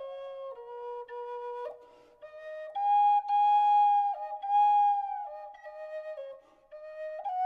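Background music: a slow flute melody of long held notes, growing louder for a couple of seconds in the middle.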